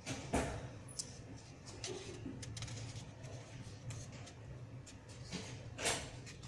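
Glossy magazine pages being handled: a papery swish about a third of a second in and a louder one near the end as a page is turned, with small paper clicks and rustles between.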